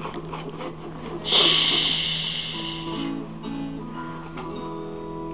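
Background music: a loud hissing crash about a second in that fades away, then guitar music with held notes.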